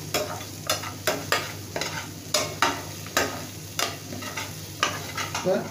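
Metal spatula stirring and scraping a chilli-spice paste frying in oil in a metal frying pan, about two strokes a second, with the oil sizzling underneath.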